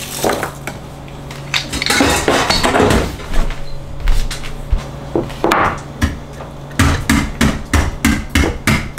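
Kitchen utensil clatter: a few scattered knocks and scrapes, then from about seven seconds in a quick regular run of sharp knocks, about three a second, like chopping on a cutting board.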